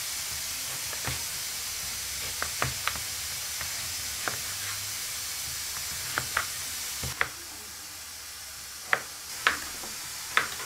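Food frying in a cooking pot: a steady sizzling hiss, with scattered sharp clicks and knocks that are loudest near the end.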